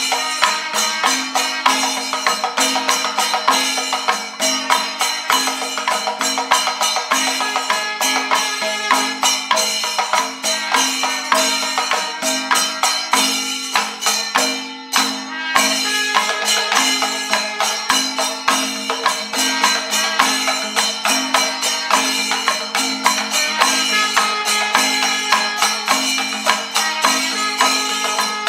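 Panchavadyam temple ensemble playing the 28-aksharakalam composition: timila hourglass drums and maddalam in a steady rhythm, with elathalam cymbals clashing densely and held horn notes repeating over them.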